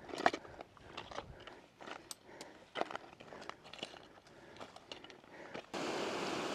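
Irregular crunching steps on loose stony ground, short sharp crunches coming every half second or so. Near the end this cuts abruptly to the steady rush of a mountain stream.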